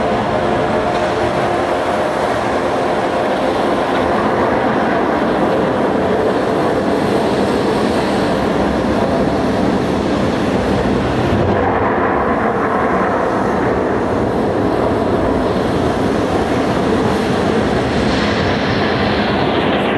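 The light show's soundtrack playing over loudspeakers: a loud, steady, dense rumbling noise like a passing train, its high end gradually dulling away toward the end.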